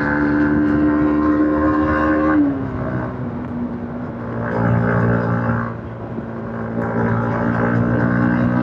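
Yamaha MT-15's single-cylinder engine on its stock exhaust, heard from the rider's seat at steady revs. About two and a half seconds in, its note drops in pitch. It then swells and fades in loudness with the throttle.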